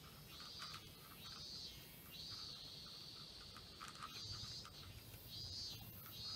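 A cat crunching dry kibble from a bowl, small irregular crunches. Behind it, a high-pitched animal call repeats about once a second, with one call held longer near the middle.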